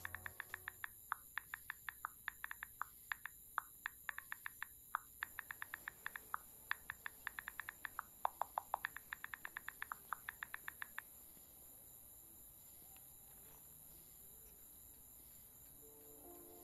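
Phone's on-screen keyboard tapping as a text message is typed: quick, irregular runs of short clicks, several a second with brief pauses, stopping about eleven seconds in.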